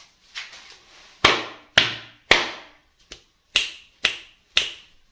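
Six sharp taps of hard plastic toy pieces, in two quick groups of three, each with a brief ringing tail.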